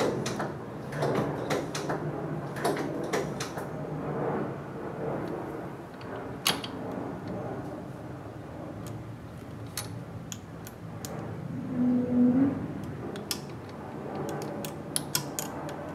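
Scattered light clicks and metal taps of a wrench working the bleeder screw on a rear disc brake caliper while the brakes are bled. A brief low hum sounds about twelve seconds in.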